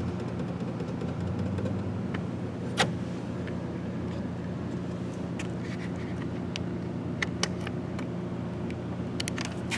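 Scattered clicks and light taps of the interior door handle's linkage rods and plastic retaining clips being worked into place inside a 1998 Chevy GMT-400 truck door, with one sharper click about three seconds in and a cluster of clicks near the end. A steady low hum runs underneath.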